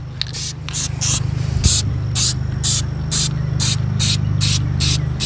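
Aerosol spray-paint can hissing in short, evenly spaced bursts about twice a second, over a steady low hum.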